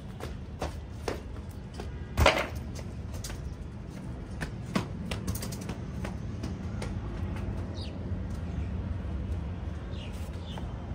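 Hand working neem oil cake and fertilizer into dry potting soil in a terracotta pot: a run of small clicks and crumbling scrapes as soil clods are broken up, with one louder scrape about two seconds in.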